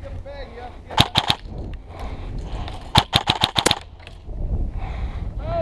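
Umbrella Armory LVOA-S electric airsoft rifle firing in two bursts: about three quick shots about a second in, then a faster string of about six or seven shots about three seconds in.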